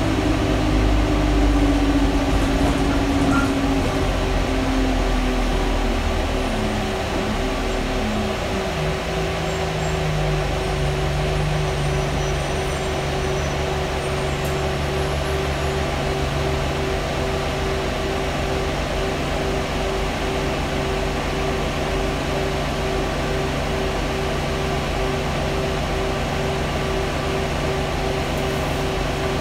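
Single-deck bus's interior fan whirring loudly and steadily with a pulsing hum, over the engine drone of the bus. The engine pitch falls over the first several seconds, then settles and runs steady.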